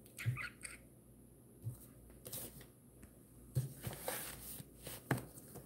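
Quiet, scattered rustles, taps and soft bumps of hand-held recording-device handling noise as the phone or camera is moved about.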